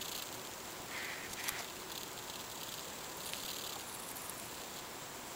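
A steady hiss with a few faint scratchy rustles, about a second in and again a little past three seconds, and one short click about one and a half seconds in.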